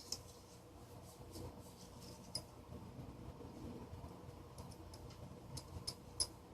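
Faint, sparse clicks and taps of a screwdriver and small steel motor parts being handled, with a few quick ones close together near the end.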